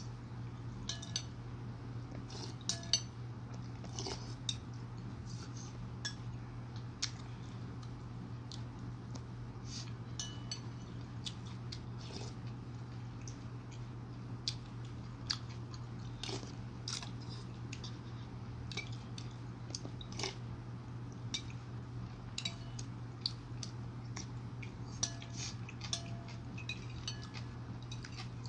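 Metal spoon clinking and scraping against a ceramic bowl of chicken soup, in irregular little clicks, with the chewing sounds of eating, over a steady low hum.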